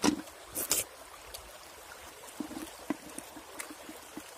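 A metal cooking pot being washed by hand in a shallow flowing stream: water sloshing and splashing as the pot is rubbed, with two loud sharp knocks in the first second and smaller clicks after, over the steady trickle of the stream.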